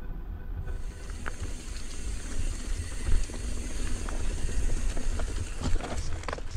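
Mountain bike riding over a rough dirt and gravel trail: steady tyre noise with scattered rattling knocks, and wind rumbling on the microphone.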